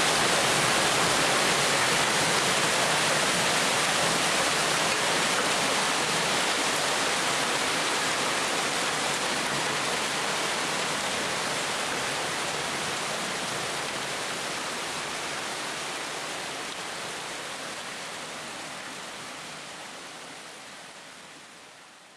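Hailstorm: hail and heavy rain pelting down in a dense, steady hiss. It fades slowly away and dies out near the end.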